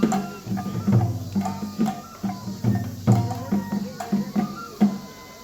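Shishimai festival music: taiko drums beaten in a quick, uneven run of ringing strikes, breaking off shortly before the end.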